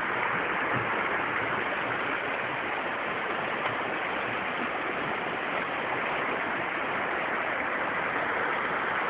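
Creek water rushing, a steady even wash of noise.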